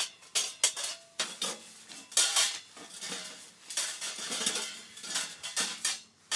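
Hard objects, mostly metal, knocking and clinking in quick, irregular succession. Some strikes ring briefly.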